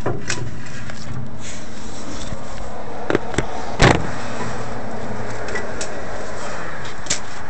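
Camera being handled and repositioned by hand. A few sharp knocks and rubs sound over a steady background hiss, the loudest knock about four seconds in.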